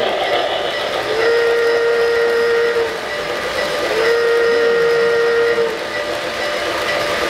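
Electronic sound system of an O-gauge model train blowing two long whistle blasts, each about a second and a half, over the steady running noise of model trains on the layout.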